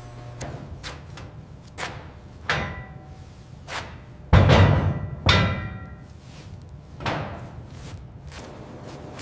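A series of irregular hammer blows on metal, about eight strikes, several leaving a short metallic ring; the heaviest blow, about four seconds in, lands with a deep thud.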